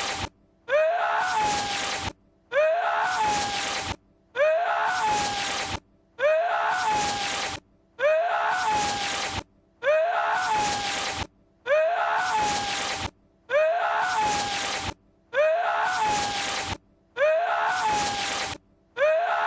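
A man's sneeze-like vocal outburst, the voice clip of Lord Voldemort, looped about eleven times: each a short voiced rise in pitch running into a long breathy hiss, with a brief gap before the next identical repeat.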